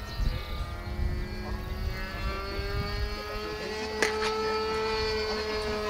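A radio-controlled model aircraft's motor running at the flying field, its pitch slowly rising and then levelling off, with one sharp click about four seconds in.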